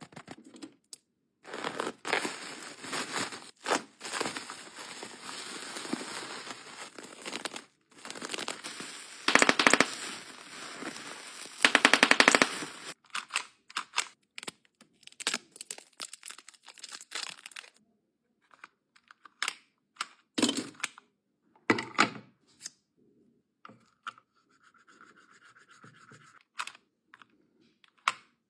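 Unboxing handling sounds: packaging and small plastic gadgets being scraped, rustled and clicked, with rapid rattling bursts about nine and twelve seconds in, then scattered sharp clicks and taps.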